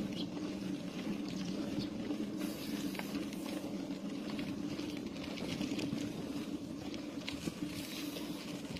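Steady low hum with rolling road noise and a few light rattles from a vehicle moving along a paved road.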